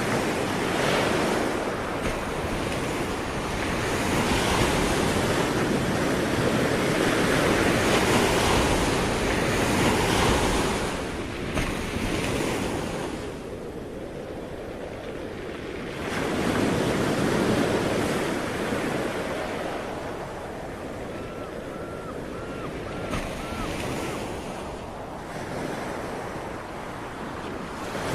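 Ocean surf: waves breaking and washing in, the rush swelling and ebbing, with a long loud stretch at the start and another swell a little past the middle.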